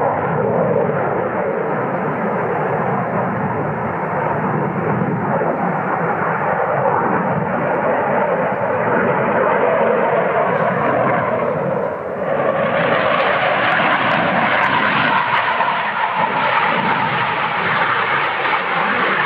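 Saab JAS 39 Gripen fighter jet's engine noise, loud and continuous, as the jet flies a tight banked turn. The noise dips briefly about twelve seconds in, then comes back harsher and brighter.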